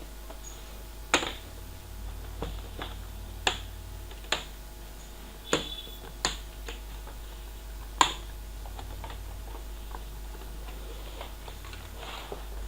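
Sharp plastic clicks and snaps, about eight of them at irregular gaps, as the plastic case of a Dell laptop is pried open and its clips let go. A steady low hum runs underneath.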